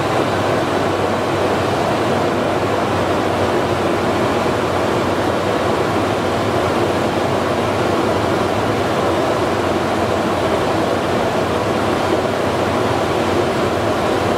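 Lexus LX470's V8 engine idling, heard with a loud, even rushing noise, while the running transmission pumps old fluid out through the cooler line for a fluid exchange.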